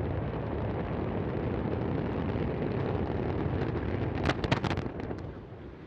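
Low rumble of the Antares rocket exploding moments after liftoff, with a cluster of sharp cracks about four seconds in, after which the rumble fades.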